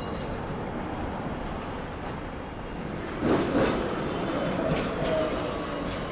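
Hong Kong double-decker trams running on street track: the steady rumble and rattle of steel wheels on the rails, over city traffic noise. There is a louder noisy burst about three seconds in.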